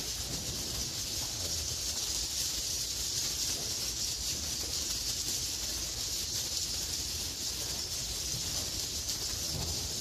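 Dense, steady high-pitched chorus of swiftlet calls filling the concrete bird room of a swiftlet nest house: live edible-nest swiftlets twittering together with the swiftlet-call lure sound played through the house's amplifiers and tweeters. It sounds like an unbroken hiss-like chirring.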